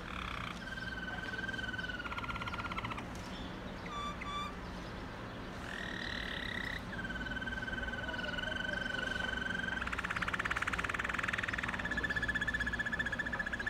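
Waterslager (Malinois) song canary singing: long, steady whistled notes, each held for a second or more, broken by fast rattling rolls.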